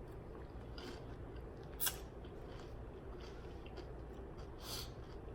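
A person chewing food close to the microphone, with a few short crisp crunching clicks, the sharpest about two seconds in.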